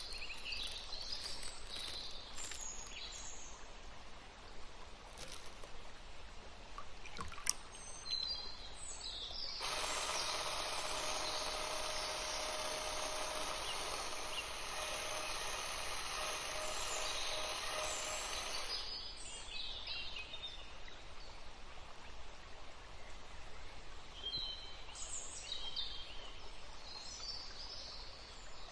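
Handheld electric whisk running steadily for about nine seconds as it whips cream in a glass bowl. It starts about ten seconds in and stops suddenly. Before and after it, light clicks and taps from handling the piping bag, glass and bowl.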